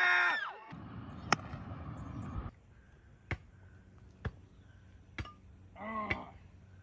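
A shovel chopping into hard, stony dirt while digging a hole: five sharp strikes, the last four about a second apart, with a short call near the end. In the first second, the tail of a cheering arena crowd cuts off.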